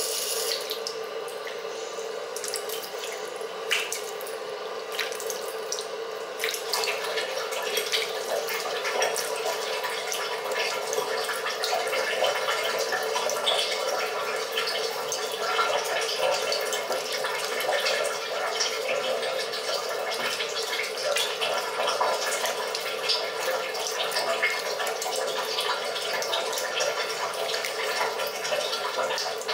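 A tap running a steady stream into a sink basin while hands scoop and splash the water to rinse the face. The splashing grows busier about six seconds in.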